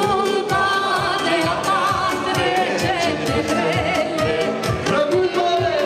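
Live band playing dance music with a steady beat and a woman singing over keyboard accompaniment, loud and continuous.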